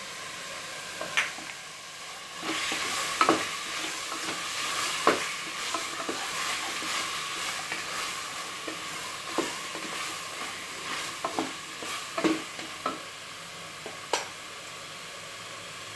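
Chicken sautéing in oil in an aluminium pressure cooker, sizzling, while a wooden spatula stirs and scrapes it, knocking against the pot now and then. The sizzle swells about two and a half seconds in and eases after about seven seconds.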